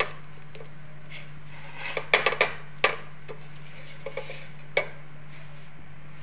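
Black slotted spatula knocking and scraping against a dark nonstick pan as a folded dosa is pressed and shifted: a quick cluster of clicks about two seconds in and a single knock near five seconds. A steady low hum runs underneath.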